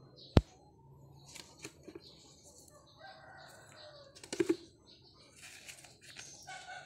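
One sharp knife chop on a plastic cutting board about half a second in, then chickens clucking softly a few times.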